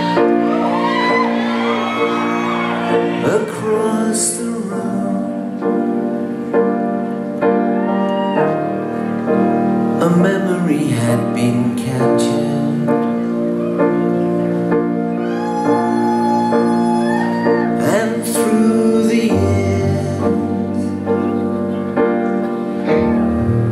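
A live acoustic band plays the instrumental introduction of a song: piano and strings hold slow sustained chords over a double bass. Audience cheers and whistles are heard over the music in the first few seconds.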